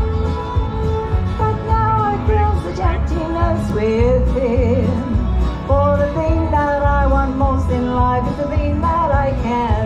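A solo singer singing into a microphone over backing music with a steady bass beat, heard through an outdoor PA. The sung notes are held with a wavering vibrato, most plainly about four seconds in.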